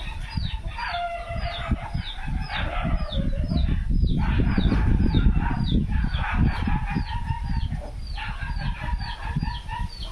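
Aseel rooster crowing twice, two long drawn-out crows, the second starting about halfway through. Short high falling chirps repeat about three times a second throughout, over a low rumble.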